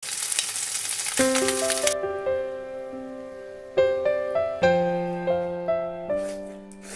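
Bacon sizzling in a frying pan for about two seconds, then it cuts off and a gentle keyboard melody carries on alone.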